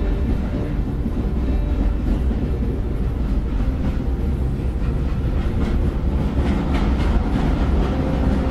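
Train running along the track: a steady low rumble with some rattling of wheels and carriages.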